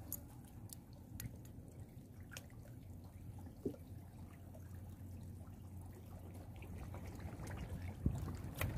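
Faint water at the edge of a harbour: small drips and trickles with scattered light ticks over a low steady rumble, and a couple of louder knocks near the end.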